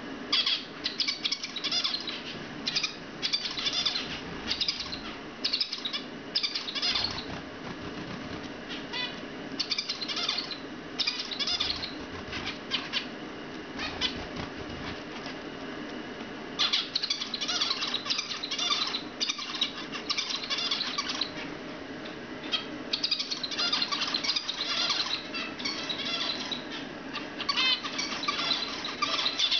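Young zebra finches chirping and singing in busy stretches with short pauses between them, with wing flaps as birds fly in to join the others on the perch.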